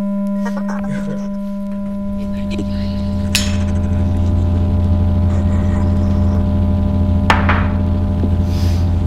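Ominous film-score drone: a steady, sustained low tone with higher overtones, joined after about a second and a half by a deeper hum that swells and grows louder. Two sharp hits with a ringing tail cut through, about three and a half and seven seconds in.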